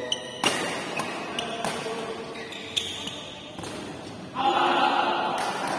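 Several sharp hits ringing in a large hall amid crowd chatter. About four and a half seconds in, the crowd breaks into a loud shout.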